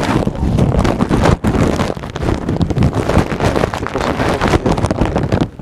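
Loud, dense rustling and crackling handling noise as gloves are pulled on, with a brief break about a second and a half in.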